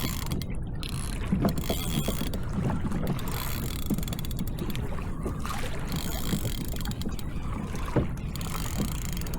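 Water moving against a kayak hull with wind rumble on the microphone, and scattered short knocks throughout.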